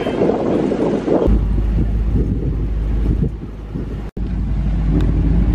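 Wind buffeting the microphone, a heavy low rumble that sets in about a second in, with a brief dropout about four seconds in.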